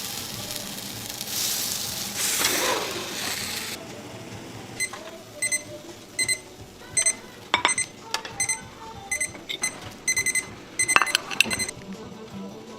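A few seconds of loud hissing noise, then a run of short, high electronic beeps at uneven intervals, mixed with clicks, that stops near the end.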